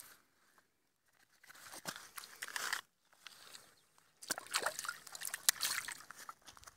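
Water sloshing and splashing as fish are released from a keepnet into shallow lake water, in two bursts, about one and a half and four seconds in.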